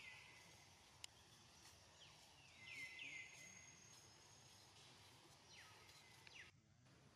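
Faint outdoor ambience with a few short bird chirps that sweep downward in pitch, mostly bunched around three seconds in, and a single faint click about a second in.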